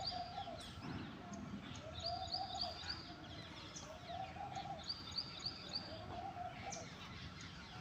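Birds calling. A low phrase of several notes repeats about every two seconds, with runs of short, high chirps between the phrases.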